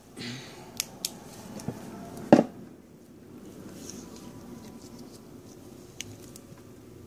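Handling noise as a small lamp is repositioned to relight the coin: a short rustle, a few sharp clicks, then one louder knock about two and a half seconds in, and a last click near the end.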